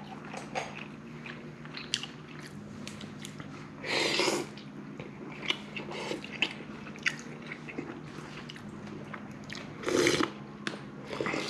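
Someone eating noodle soup up close: chewing with small clicks of wooden chopsticks and a plastic spoon, and two loud slurps, one about four seconds in and one near the end as broth is sipped from the spoon.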